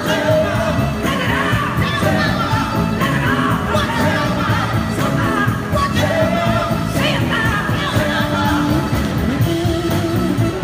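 Live band playing a soul song: electric guitars, a horn section and drums, with a singing voice over them.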